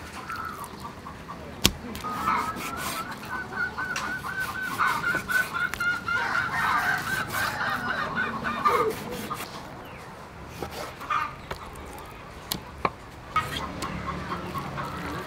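Chickens clucking and calling repeatedly, over the occasional sharp knock of a knife blade cutting raw beef on a chopping board, the loudest knock about two seconds in.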